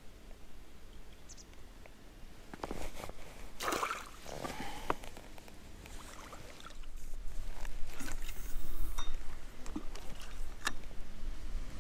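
Water splashing and sloshing with scattered knocks and clicks of handling, busiest in the first half, then a louder low rumble and hiss for a couple of seconds.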